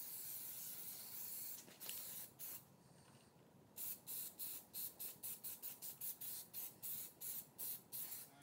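Aerosol spray can of black Plasti Dip hissing as it lays a black backing coat inside a clear RC truck body: a steady spray for about a second and a half, then short puffs, a brief pause about three seconds in, then quick short bursts about three a second.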